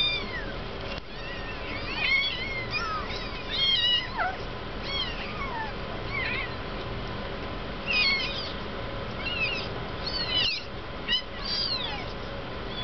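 Two-week-old kittens mewing: high, thin cries that drop in pitch, coming in clusters every second or two. They are hungry mews at the bottle from a kitten that has not yet latched on.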